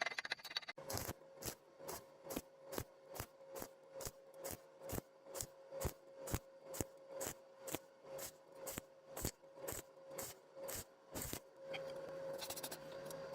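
Regular rasping strokes, a little over two a second, over a faint steady hum; the strokes stop near the end.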